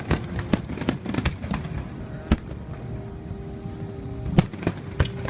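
Aerial fireworks bursting: a quick irregular run of sharp bangs in the first two seconds, a lone bang midway, then two more near the end, over a continuous low rumble.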